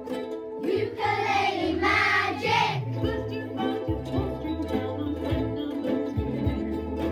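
A class of children playing ukuleles together, with a voice singing for about two seconds starting about a second in.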